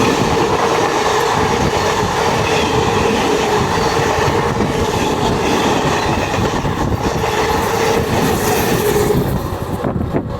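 A train passing at close range, its wheels clattering over the rails with a steady high tone over the noise that stops shortly before the end; the sound then begins to drop away.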